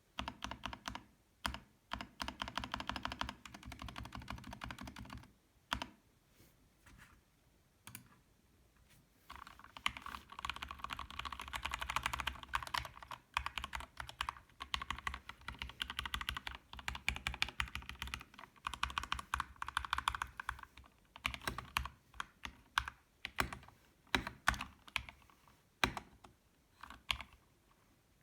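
Typing on a Kemove DK61 Snowfox mechanical keyboard with Gateron Red linear switches and stock stabilizers: fast runs of keystrokes, a pause of about four seconds starting around five seconds in, then scattered separate key presses near the end.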